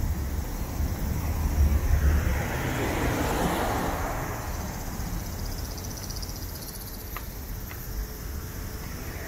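Road traffic beside the sidewalk: a vehicle passes about three seconds in, its noise swelling and then fading away, over a low rumble that eases off during the first few seconds.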